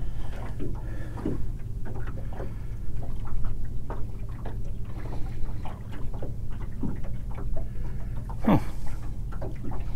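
Small waves lapping and slapping against the hull of a small fishing boat: irregular light knocks over a steady low rumble, with one louder slap near the end.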